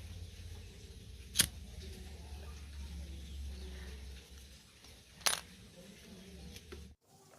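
Two sharp metallic clicks, about four seconds apart, over a low steady hum, like small metal parts or tools knocking together during an electric fan repair; the sound cuts off abruptly near the end.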